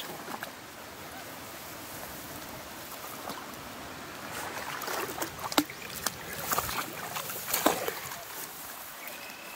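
Six-week-old Small Munsterlander puppies paddling and splashing in shallow water at the bank, over a steady background hiss. The splashing picks up about halfway in, with a few sharper splashes near the end.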